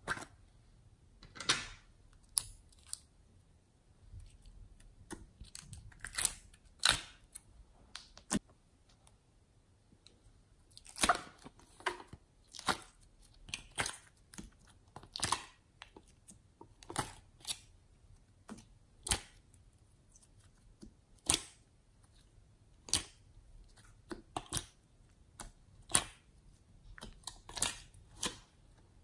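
Hands squeezing and pulling soft slime and clay, making sharp wet clicks and squelches about once every second or so at irregular intervals.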